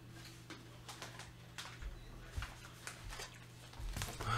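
Faint steady low hum with scattered light clicks and small handling rustles, growing a little busier near the end.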